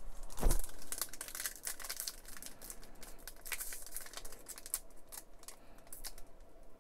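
A sealed plastic trading card pack crinkling and crackling as hands grip it and try to pull it open. The pack is hard to open and does not give. A single louder knock comes about half a second in.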